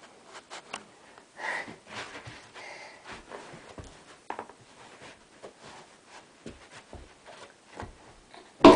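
A person moving close to the microphone: breathing and sniffing, rustling and scattered small knocks, with one loud knock near the end.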